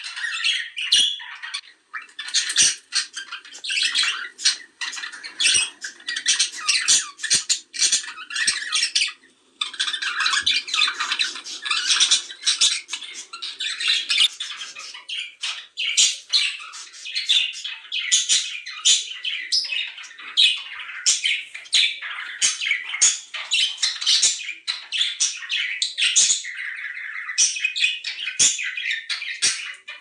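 Budgerigars chattering and warbling almost without a break: a dense run of quick chirps, clicks and squawks. It is the kind of breeding chatter played to prompt budgies to mate.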